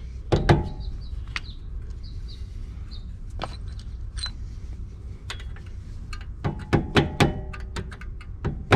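Scattered sharp metallic clicks and knocks from brake parts and hand tools being handled during brake-pad work, with a quicker run of ringing taps starting about two-thirds of the way through.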